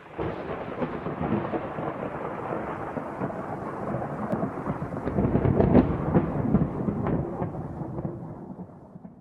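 A long roll of thunder, loudest a little past halfway through and dying away at the end.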